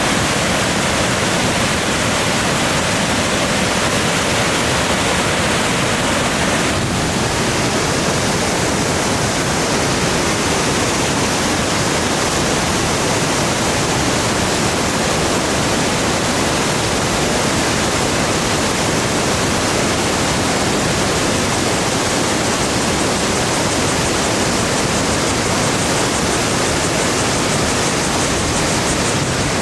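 Beauty Comb Waterfall falling into the Fengxi River: a loud, steady rush of falling water.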